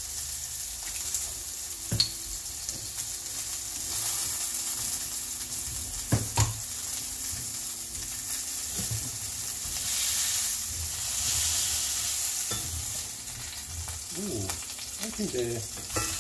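Burgers sizzling in a cast-iron skillet, a steady hiss of frying fat. A few sharp knocks come in the first half. Near the end a slotted spatula scrapes under a burger to lift it.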